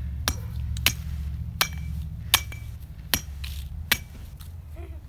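Metal baseball bat striking something on the ground six times, about every three quarters of a second, each blow a sharp ping with a short ring, over a steady low rumble.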